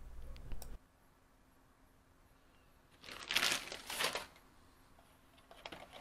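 Clear plastic packaging crinkling as it is handled, in a burst of about a second roughly three seconds in, with a few short rustles near the end.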